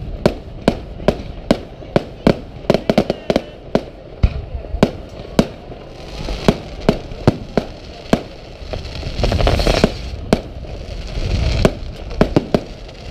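Aerial firework shells bursting overhead in rapid, irregular bangs, several a second. Around nine seconds in, and again a little before the end, a denser rush of noise swells up beneath the bangs.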